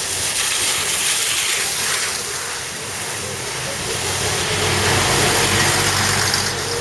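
A city bus passing on a street over steady traffic hiss, its engine hum building up loudest in the second half.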